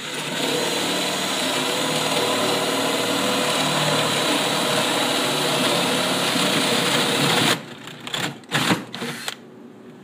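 Power drill spinning a 3/4-inch paddle bit, boring the lock hole into a melamine-faced particleboard cabinet door. It runs steadily for about seven and a half seconds, then stops, and a few short knocks follow.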